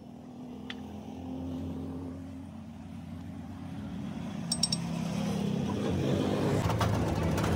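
A motor vehicle engine running in the background, a low steady hum that slowly grows louder, with a few light clicks about four and a half seconds in.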